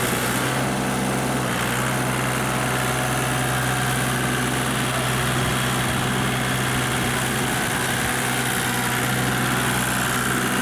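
Kubota compact tractor's small diesel engine running at a steady speed while pulling a harrow through the mud of a flooded rice paddy.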